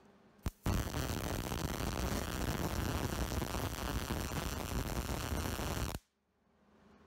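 MIG welding arc crackling steadily for about five seconds as a bead is run on steel square tubing. It starts just under a second in and cuts off suddenly when the trigger is released.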